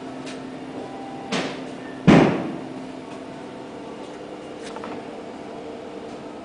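Two knocks about three-quarters of a second apart, the second much louder with a short ringing tail, like a cabinet or door being shut, over a steady hum of several pitches.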